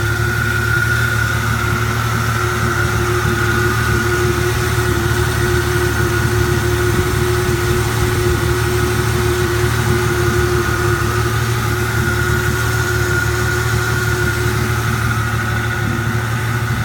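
HTAG80 tractor's spark-ignition engine, with freshly replaced spark plugs, idling steadily, with an even hum and a steady higher whine over it.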